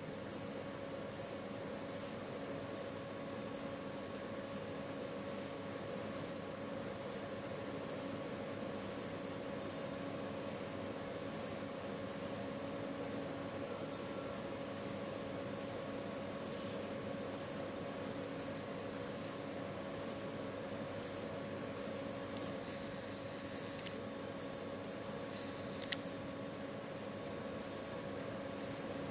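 A high-pitched chirp repeating steadily, about three every two seconds, with a fainter, lower chirp now and then and a steady low hum beneath.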